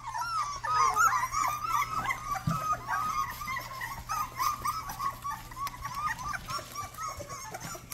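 A litter of young Rottweiler puppies whimpering: many short, high-pitched squeaks, several a second, overlapping one another.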